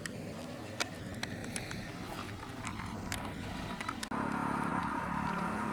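Motorcycle engine running steadily, with scattered sharp clicks over it; about four seconds in, the sound changes abruptly and gets louder, with a new steady hum.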